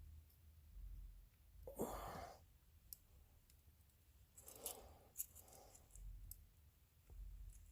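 A man's heavy sigh about two seconds in and another softer breath a few seconds later, out of frustration with the soldering, over a low hum, with a few faint small clicks of handling the pickguard and tools.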